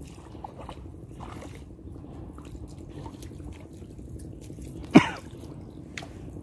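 Water dripping and trickling in small drops, with light scattered clicks, as the fishing line and float are handled above the water. About five seconds in comes one sharp, loud watery plop.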